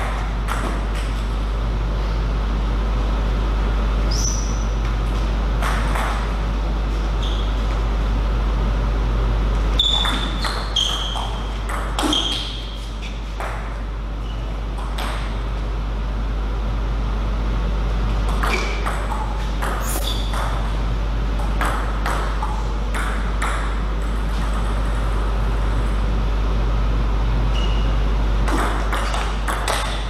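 Celluloid/plastic table tennis ball clicking off rackets and the table in several short rallies with pauses between points, each hit a sharp tick, some with a brief high ping. A steady low hum runs underneath.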